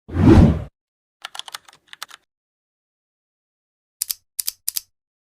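A short, loud burst with a deep low end, then two runs of quick, sharp clicks like keys or hard plastic being clicked: a faint scatter a little over a second in, and four crisp clicks about four seconds in.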